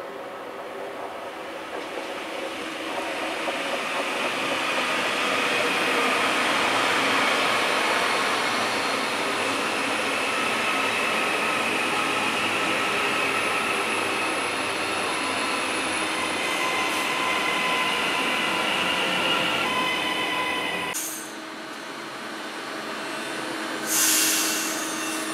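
TransPennine Express Class 397 electric multiple unit passing close by: the rumble of its wheels on the rails builds over the first few seconds and holds, with a high whine above it. It breaks off abruptly about 21 seconds in to a second Class 397 passing more quietly, with a short loud hiss near the end.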